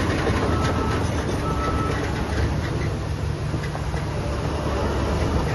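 Heavy diesel construction machinery running with a steady low drone, and scattered short metallic clanks and knocks over it.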